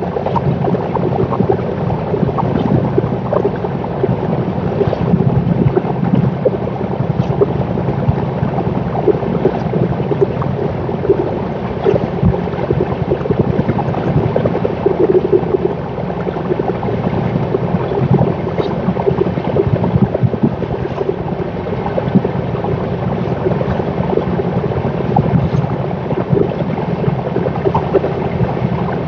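Express train's coaches passing at speed: a loud, steady rumble of wheels on rail, thick with rapid clatter and knocks.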